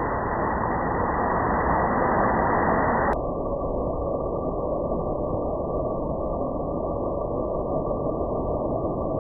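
Steady background noise with a low rumble and no distinct events; the sound turns duller about three seconds in.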